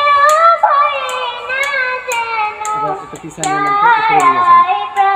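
A child's voice singing an Arabic Islamic nasheed, a high sustained melody with long gliding notes. A sharp clap-like beat falls roughly every half second.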